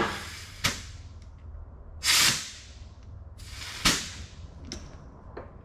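Short blasts of compressed air hissing into an Eaton 13-speed transmission's range shift cylinder, three bursts about two seconds apart, with sharp clicks and clunks as the range fork is air-shifted back and forth to check that it shifts.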